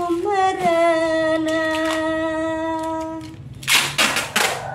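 A woman's voice humming one long held note that slides up into it and wavers slightly, then packing tape being pulled off its roll in a few quick, loud rips near the end.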